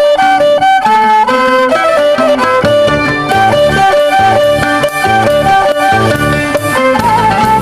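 Instrumental music: a melody of short, quick notes over a steady low beat.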